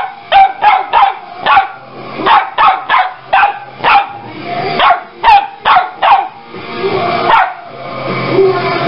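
A Lapphund barking in quick, high-pitched barks, about two or three a second, with a short break about seven seconds in.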